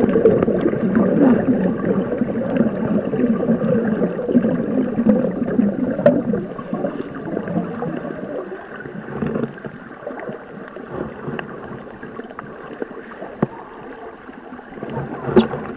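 Muffled water noise heard through a camera held underwater: a dense, low rushing crackle, louder in the first half, easing to a quieter crackle with a few sharp clicks near the end.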